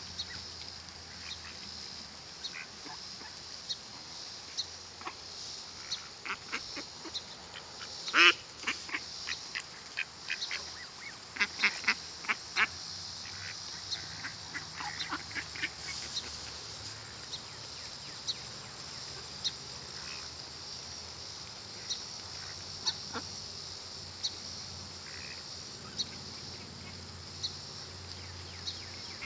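A flock of mallard ducks and Canada geese calling as they feed, with short quacks and honks. There is one loud call about eight seconds in, a flurry of short calls over the next few seconds, then only scattered ones.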